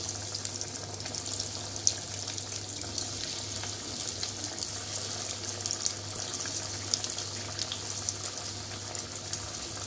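Breaded raw chicken nuggets deep-frying in hot oil in a kadai: a steady sizzle with dense crackling and one sharper pop about two seconds in.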